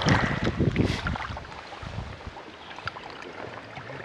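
Shallow river water splashing and sloshing as a person wades through it, loudest in the first second, then easing to a quieter steady wash of moving water with a few small ticks.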